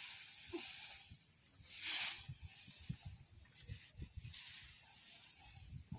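Outdoor hiss and rustling with a steady high-pitched whine throughout, a louder rustle about two seconds in, and faint scattered knocks.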